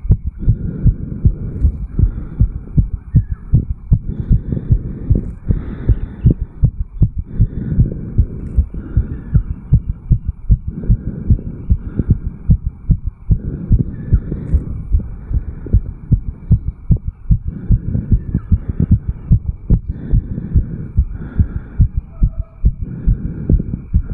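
A man's heart recorded at the mitral valve area of the chest, beating fast and hard at several beats a second, its valves closing in quick succession: a heart racing after jogging uphill.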